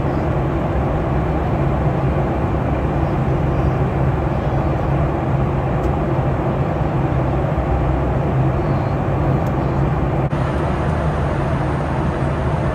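Steady cabin noise of an airliner in flight: a low droning hum under an even rush of air.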